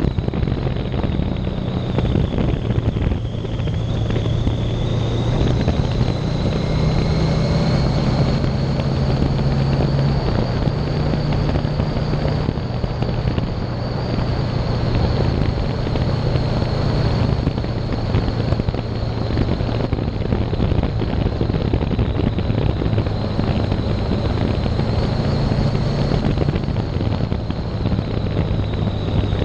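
Motorcycle engine running at a steady road speed with wind noise on the microphone; the engine pitch shifts a little a few times as the throttle changes.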